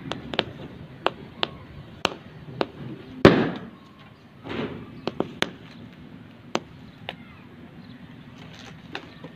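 Firecrackers going off in an irregular series of about a dozen sharp bangs, the loudest a heavier blast about three seconds in that trails off in a rumble.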